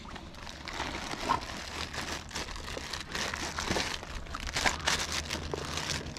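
Gloved hands rummaging through a camouflage blind bag packed with gear. Fabric and packaging rustle and crinkle, with irregular scrapes and small clicks.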